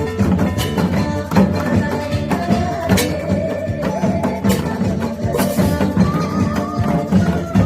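Music played with a steady percussion beat under a wavering melodic line.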